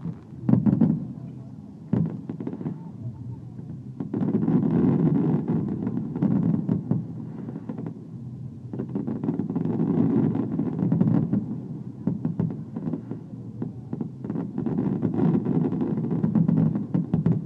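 Aerial fireworks exploding: sharp bangs and a dense rumbling of bursts that swells and fades several times, with crowd voices underneath.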